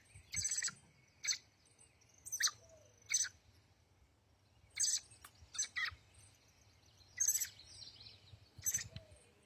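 Songbirds chirping: short, sharp high calls in little clusters every second or so, over a faint low background rumble.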